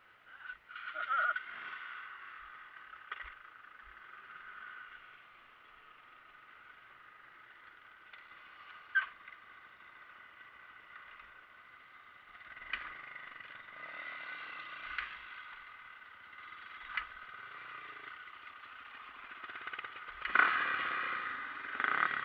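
Dirt bike engine running steadily at low speed, with a few sharp knocks as the bike rides over rough ground, and louder near the end.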